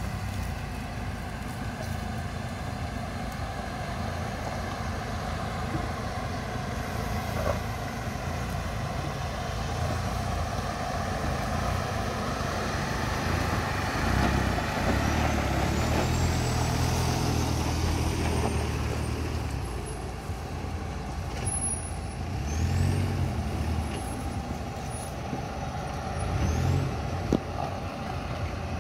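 Mahindra Thar off-road jeeps' engines running as they crawl up a rocky trail, louder under load for a few seconds around the middle, then two short revs near the end.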